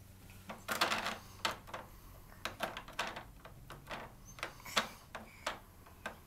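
Plastic clicking and clattering from a Fisher-Price activity cube as a baby pats it and works its ridged roller buttons: a run of irregular sharp clicks, with a longer clatter about a second in.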